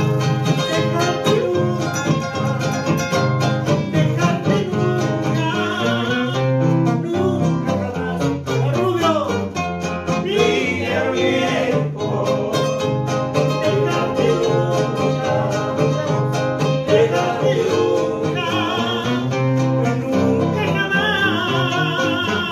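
Two acoustic guitars playing together live, strummed and picked, with a man's voice singing at times over them.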